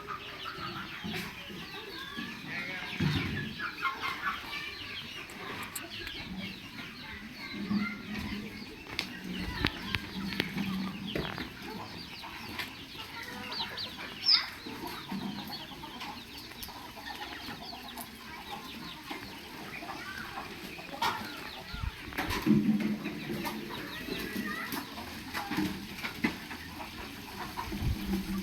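Chickens clucking, with short calls coming again and again and some higher chirping from other birds mixed in.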